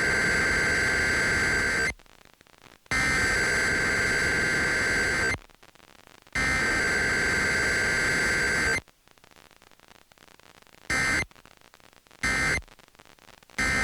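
Emergency Alert System SAME data bursts, a harsh two-tone digital warble, sent as a Required Weekly Test. Three header bursts of about two and a half seconds each play with about a second's pause between them; the first is already under way. About eleven seconds in, three short end-of-message bursts follow.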